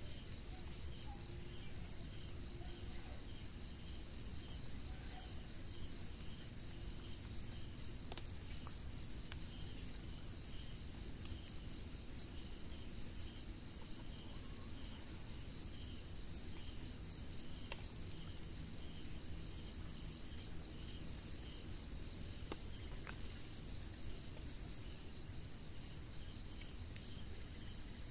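Insects shrilling steadily: a constant high buzz with a fainter, evenly repeating chirp pulsing over it, above a low background rumble.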